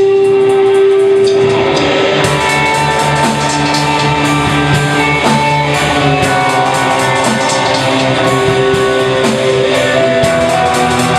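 Live rock band playing: electric guitars over a drum kit, with steady cymbal strokes joining about two seconds in.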